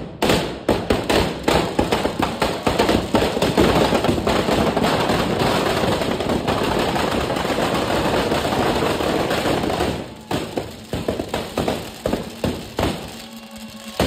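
Firecrackers packed inside a burning Ravan effigy going off in a dense, rapid crackle of bangs. After about ten seconds the crackle thins to scattered single bangs.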